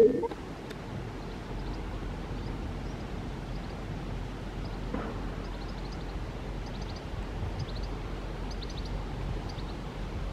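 Steady low outdoor rumble of wind and distant traffic, with faint short high chirps of birds scattered through. A brief loud thump right at the start.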